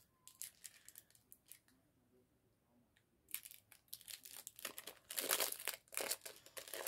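Foil Pokémon TCG booster pack wrapper being torn open by hand and crinkling in short bursts. After a pause of about a second and a half, the crinkling and tearing start again and grow louder over the last couple of seconds as the wrapper is pulled apart.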